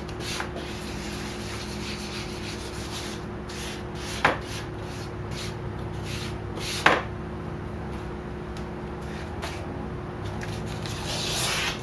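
Vinyl wrap being rubbed and pressed down by hand and squeegee onto a plastic grille, with two short sharp squeaks about four and seven seconds in. A steady hum runs underneath, and a brief hiss comes near the end.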